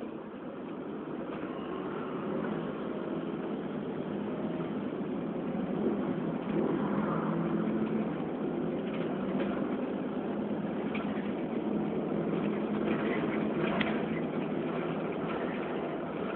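Volvo B7RLE single-deck bus's rear-mounted six-cylinder diesel engine running, heard from inside the passenger saloon together with the bus's cabin noise. It grows louder over the first several seconds, then holds steady.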